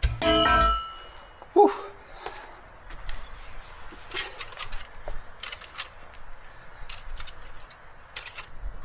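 Metal struck hard with a ringing clang, then a second, shorter ringing knock. After that come scattered light clicks and knocks.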